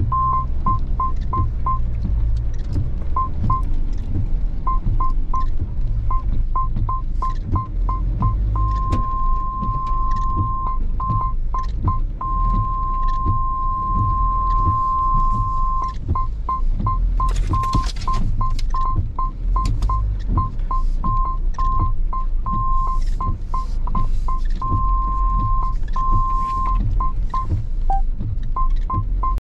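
Vehicle parking-sensor beeper sounding at one pitch in quick series of beeps, twice going to a long continuous tone, as bushes and branches close in around the RV. Underneath is the steady low rumble of the engine crawling in low gear, with scattered ticks and a brief hiss about seventeen seconds in.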